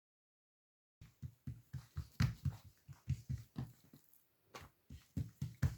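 Hands patting and pressing oiled msemen dough flat on a tray, a quick run of soft thumps about four a second. The thumps start about a second in and pause briefly before resuming.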